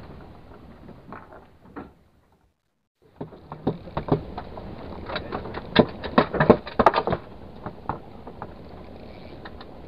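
Irregular sharp clicks and knocks of hands working a spinning reel and rod on a boat, clustered between about three and a half and eight seconds in, over a steady hiss of wind and sea. About two seconds in the sound cuts out completely for roughly a second.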